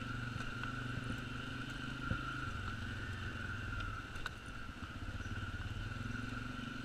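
Can-Am Outlander 400 ATV's single-cylinder engine running steadily as it rides a rough track, its note dropping a little about two and a half seconds in and picking up again near the end, with a few light knocks as the machine jolts over bumps.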